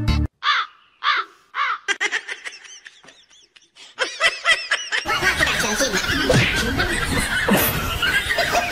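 Laughter: a few separate laughs, then many voices laughing together from about five seconds in.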